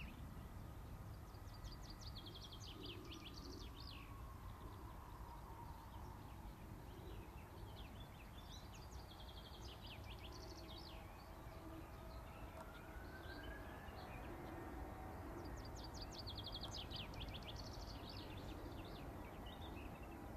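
A small bird sings three short bursts of rapid, high trilling notes several seconds apart, over a steady low rumbling noise. Beneath them the faint whine of a distant Airbus A321's jet engines drops in pitch, then rises again.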